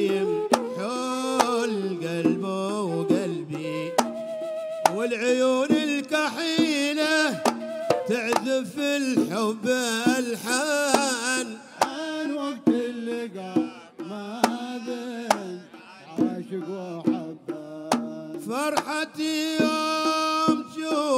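Hadrami zarbadi folk music: a wavering, sliding melody line over sharp, quick strokes on small double-headed hand drums.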